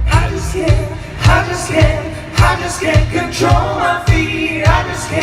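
Live band playing a song at a sound check: sung vocals over a steady kick-drum beat of about two thumps a second.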